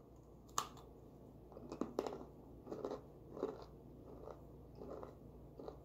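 A person biting into a crunchy baked cassava-starch roquete, one sharp crack about half a second in, then chewing it with a run of faint crunches.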